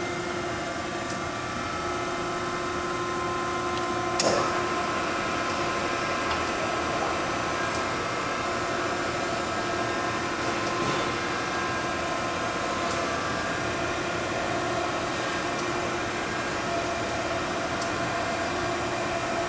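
Okamoto 1224 surface grinder running with a steady mechanical hum and a faint whine, with a single click about four seconds in.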